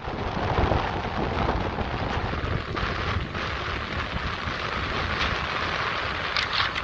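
Sea waves breaking and washing up a pebbly shore, with wind buffeting the microphone in low rumbling gusts.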